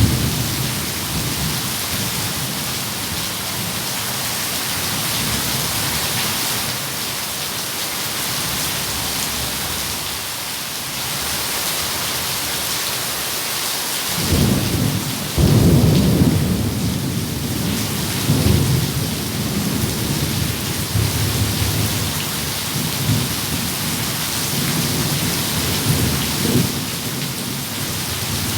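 Steady heavy rain with thunder: a continuous rain hiss, and about halfway through a thunderclap breaks in and rumbles on in rolling waves.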